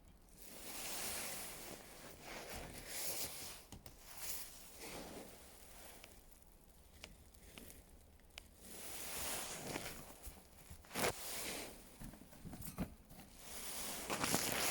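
A rabbit eating salad leaves: irregular spells of munching and leaf rustling, with a few sharp clicks.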